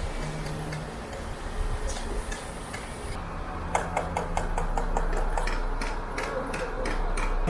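Truck-mounted concrete pump running with a steady low hum; about three seconds in, a fast, even ticking of about three or four clicks a second joins it.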